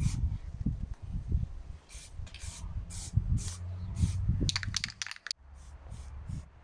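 Aerosol spray paint can hissing in short bursts, about seven in all, the last a stuttering run that stops about five seconds in, as paint is sprayed onto a chain-handled axe head. A low rumble sits underneath.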